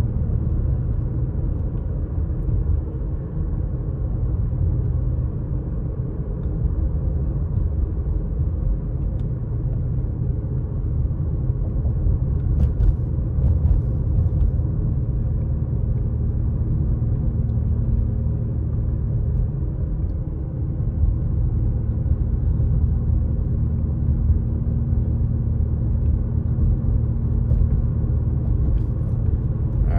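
Steady road noise inside a moving car: tyre and engine rumble, with a faint steady hum joining about halfway through.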